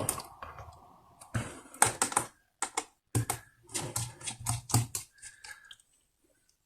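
Irregular clicks and taps of a small screwdriver and metal parts as the screws holding a laptop's CPU heatsink are undone, stopping about five and a half seconds in.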